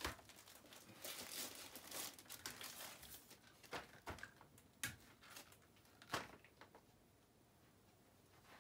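Plastic packaging crinkling and rustling as products are handled, followed by a few light knocks of items, such as plastic spray bottles, being set down on a table; it goes quiet about seven seconds in.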